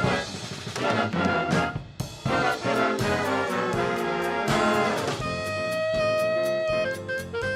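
Instrumental band music led by brass, with drum strikes keeping the beat and a long held note from about five seconds in.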